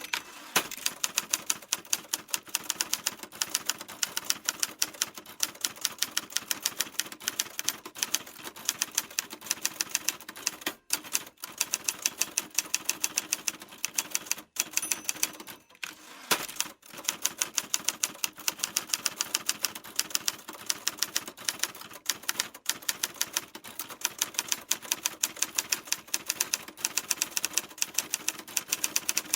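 Typewriter keys struck in quick, steady succession, several clacks a second, with a few brief pauses midway.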